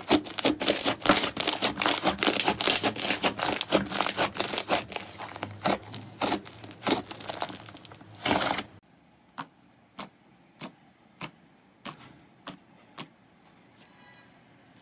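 Slime being squeezed and pressed close to the microphone, giving dense crackling and popping. About eight and a half seconds in it cuts to a quieter stretch of single sharp pops about every half second, about seven in all.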